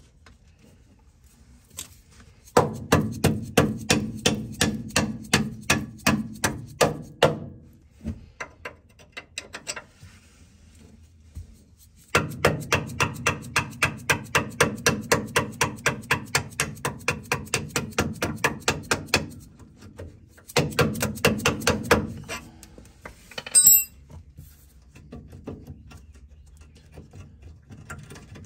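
Hammer tapping a steel punch to drive the lower mounting bolt out of a 1992 Ford F-150's front shock absorber: quick metal strikes, about four a second, in three runs with pauses between, and one sharper knock about three quarters of the way through.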